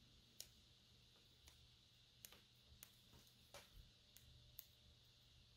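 Near silence: room tone with a faint low hum, broken by about seven faint, sharp clicks and ticks of small parts being handled.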